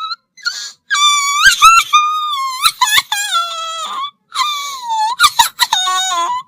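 Cartoon crying sound effect: a high-pitched, wavering wail in several long cries that rise and fall in pitch, broken by short sobbing catches. It cuts off abruptly at the end.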